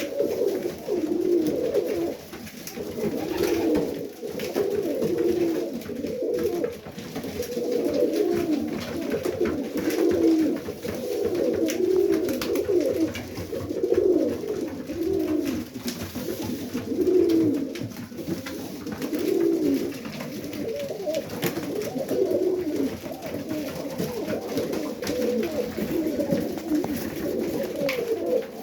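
Several Serbian Highflyer pigeons cooing continuously, their low coos following one another and overlapping.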